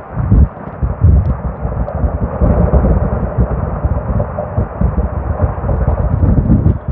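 Strong wind gusting across the microphone, an uneven low rumble and buffeting that swells and dips every fraction of a second, over a steady rushing noise.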